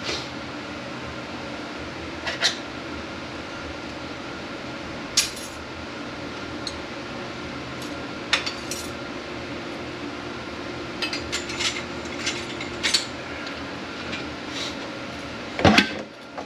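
Scattered metallic clinks and clicks of hand tools against steel transmission parts as a snap ring is worked off a 6T45E clutch piston, with a louder metal clatter near the end. A steady background hum runs underneath.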